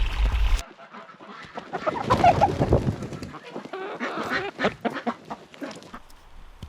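Wind rumbling on the microphone cuts off about half a second in. Then comes a flock of farm poultry calling and clucking in many short overlapping calls, which die down near the end.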